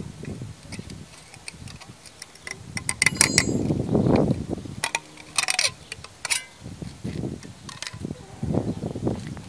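Sharp metallic clicks and scrapes of a steel bar working against a thin welded sheet-steel piece clamped in a bench vise as it is bent, with clusters about three and five seconds in, over dull low handling noise.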